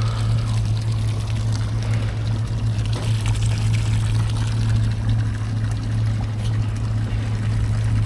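Small boat underway: a steady motor hum under rushing, splashing water.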